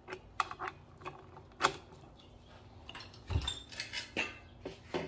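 Metal clinks and rattles of a breaker bar and 19 mm socket being handled and fitted onto a Honda engine's crankshaft pulley bolt, with a dull thump a little past halfway.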